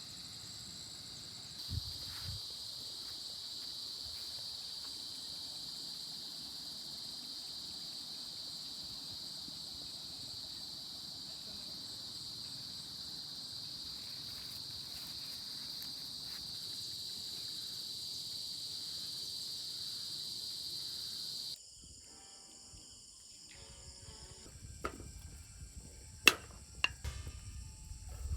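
Steady high-pitched insect chorus. About three-quarters of the way through it breaks off abruptly and comes back at a slightly different pitch. A few sharp clicks and knocks follow near the end.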